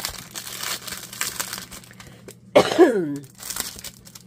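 Clear plastic packaging bag crinkling as a hand rubs and presses on it, in quick rustles through the first two seconds or so. A little past halfway, a short vocal sound from the person, falling in pitch, is the loudest thing, followed by a few more faint rustles.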